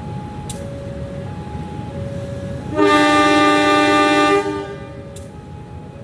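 Horn of a KAI CC 201 diesel-electric locomotive (GE U18C) sounding one blast of about a second and a half, several notes at once, over a low rumble. A two-note alternating chime goes on in the background throughout.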